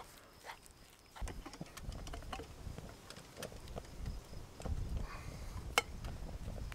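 Wooden spatula clicking and tapping against a small metal cook pot while powdered mashed potato is mixed: a scatter of light clicks with one sharper click near the end, over a faint low rumble that starts about a second in.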